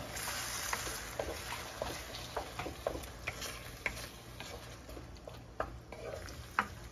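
Wooden spatula stirring thick tomato sauce with ground meat in a nonstick frying pan: irregular soft clicks and scrapes against the pan, over a faint sizzle that dies down after the first second or two.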